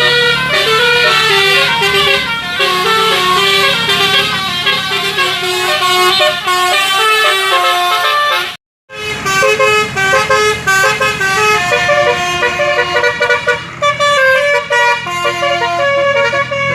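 Telolet basuri multi-trumpet musical air horn playing a fast tune of short, loud notes, several pitches at once. The sound cuts out completely for a moment about halfway through, then the horn tune carries on.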